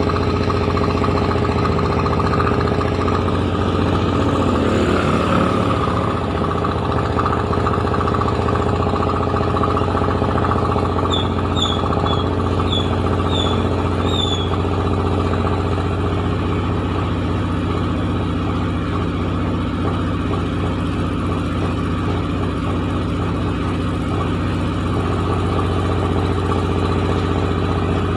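Rice milling machine running steadily with a strong low hum and a constant mechanical whir. About eleven seconds in, a quick series of about six short high chirps sounds over it.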